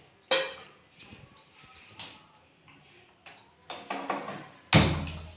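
A few sharp knocks and clinks of steel kitchen utensils and cookware being handled, each ringing briefly; the loudest knock comes near the end.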